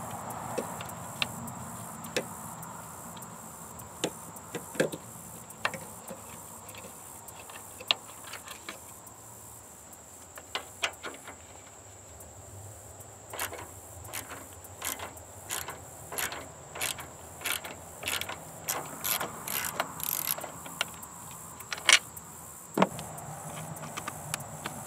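Socket ratchet wrench clicking as it turns an intercooler mounting bolt. A few scattered clicks at first, then a quicker, irregular run of ratcheting clicks from about halfway through, and one sharp, loud click near the end.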